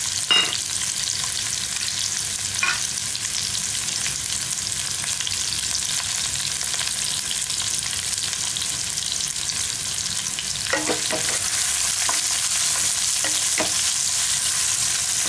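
Sliced onions and ginger-garlic paste sizzling in hot oil in a nonstick pan, a steady high hiss. A few short knocks come near the start, and from about eleven seconds in a wooden spatula stirs and taps against the pan.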